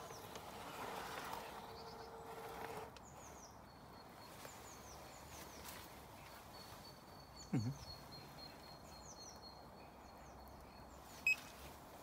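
Haswing electric trolling motor humming steadily for about the first three seconds and then stopping, running on the bench under its remote-controlled anchor mode. Small birds chirp repeatedly throughout, with a dull thump about halfway through and a sharp click near the end.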